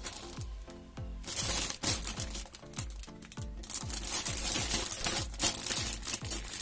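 Background music with a steady electronic beat: deep kick drums falling in pitch about twice a second, with ticking percussion above.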